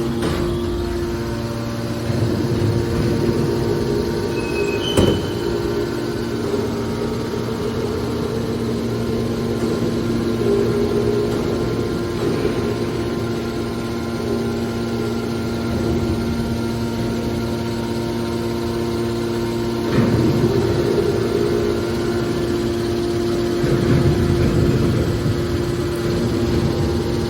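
Hydraulic scrap aluminum baler running: a steady hum from its hydraulic power unit, with a few metallic knocks. The sharpest comes about five seconds in, and louder stretches of clanking come near twenty and twenty-four seconds in.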